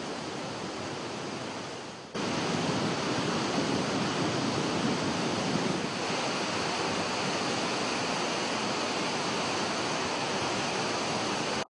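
Rushing floodwater of a river in spate: a steady noise of churning water that jumps louder about two seconds in.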